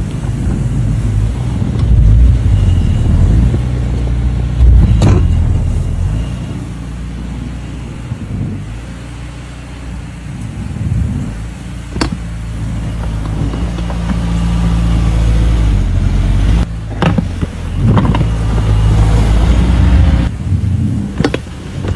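A motor running loudly with a low hum, its level rising and falling, with a few sharp knocks over it.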